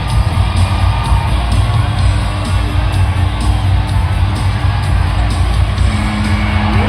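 Loud music with strong bass, with whoops and yells over it.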